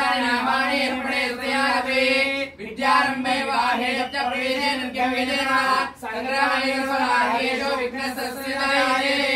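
Devotional singing in slow phrases of held, gliding notes, each about three seconds long with short breaths between them.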